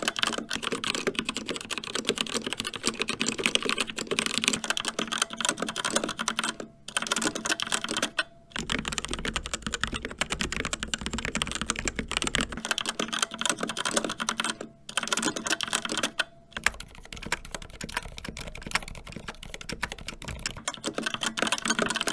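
Fast, continuous typing on three mechanical keyboards in turn, with brief pauses at each change. First a CZC Dwarf with Kailh Red linear switches, then about eight seconds in a CZC Reaper with TTC Red linear switches, then near the end a Glorious GMMK Pro with Gateron Black Ink linear switches.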